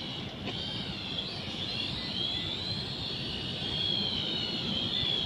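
Small red-and-black quadcopter drone flying, its propellers giving a steady high whine that wavers up and down in pitch as it manoeuvres, growing a little louder in the second half.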